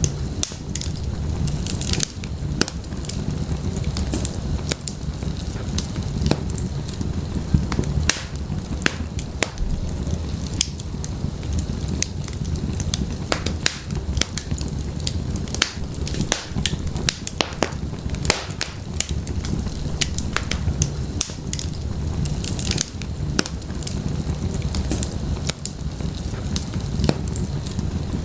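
Firewood burning in an open fireplace: a steady low rumble of flames with many sharp, irregular crackles and pops throughout.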